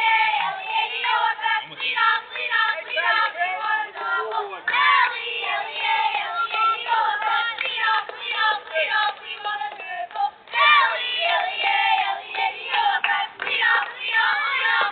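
A group of children chanting and singing together in a rhythmic team cheer, several voices overlapping, with a brief pause about ten seconds in.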